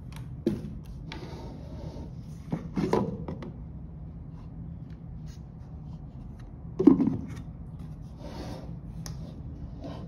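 Handling noise from an insulated plastic hotpot as its lid is taken off and put back on: short scraping rubs and a few knocks, the loudest just before seven seconds in.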